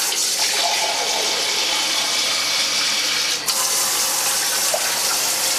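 Kitchen mixer tap running full into a glass measuring jug, filling it. About three and a half seconds in the sound changes suddenly as the jug comes away and the stream falls into the stainless steel sink.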